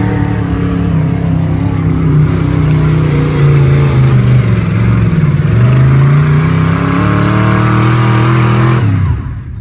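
Off-road buggy's engine revving hard under load as it climbs a sand hill with its wheels spinning; the pitch sags about halfway through, then climbs again, and the sound cuts off abruptly near the end.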